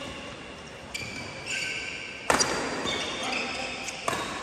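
Badminton rackets hitting a nylon Yonex Mavis 350 shuttlecock during a doubles rally: three sharp hits about a second or two apart, the loudest about halfway through, each ringing briefly in a large hall.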